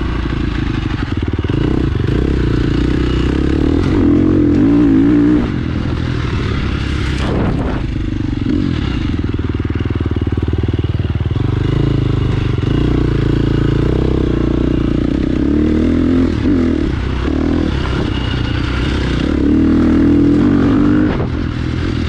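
2017 KTM 350 XC-F dirt bike's single-cylinder four-stroke engine running under riding load, its note rising and falling as the throttle is worked, with louder revs about four seconds in and again near the end.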